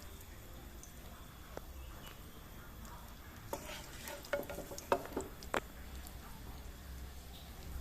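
A little cooking oil heating in a pan with a faint sizzle, and a few light clicks and scrapes of a utensil against the pan about halfway through.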